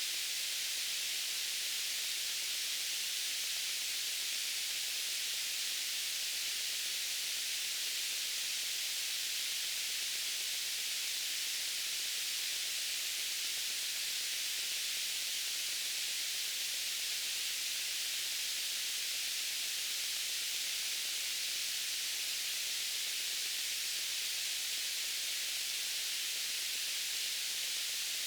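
Steady white noise: an even, unchanging hiss weighted toward the high end.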